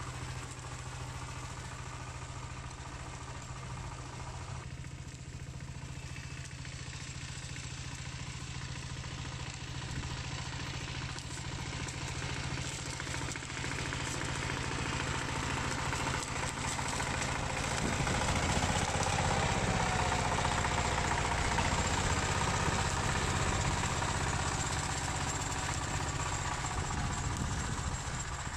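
Single-cylinder Dongfeng diesel engine of a two-wheel hand tractor running steadily, growing louder a little past halfway through and staying up.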